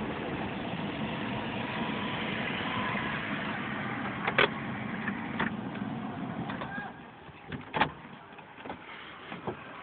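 Steady engine and road noise heard inside a moving car's cabin, dropping off about seven seconds in as the car slows. A few sharp knocks stand out along the way.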